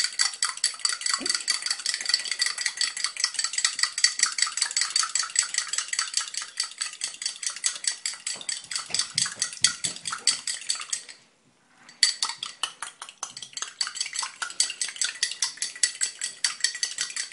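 A fork whisking egg yolk and water in a small glass cup: rapid, even clinks of the fork against the glass, which rings faintly. The beating stops briefly about eleven seconds in, then goes on.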